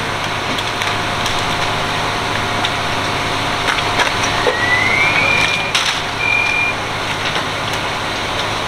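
Steady running noise of fire-scene equipment, with scattered knocks and cracks of burnt debris being pulled apart. About five seconds in a short tone rises and holds level, and a second, shorter beep follows about a second later.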